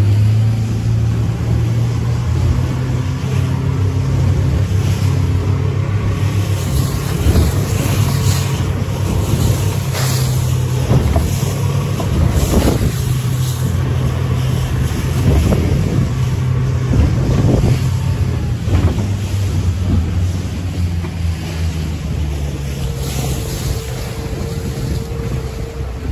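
Outboard motor of a small open fishing boat running steadily under way, with the hull thumping and splashing through choppy water and wind on the microphone. It gets somewhat quieter toward the end.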